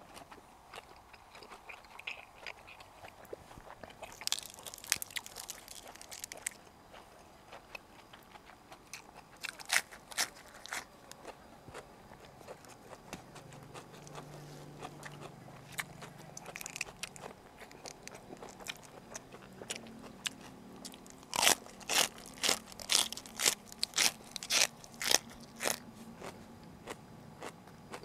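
Close-up eating sounds: biting and chewing on boiled pork uterus and fresh raw vegetable stalks, with scattered sharp crunches and a quick run of loud crunches about three quarters of the way through.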